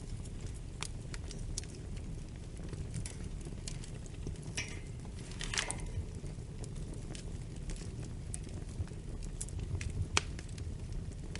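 Wood fire in a fireplace crackling, with scattered sharp pops over a steady low rumble of flames and a couple of short hisses near the middle.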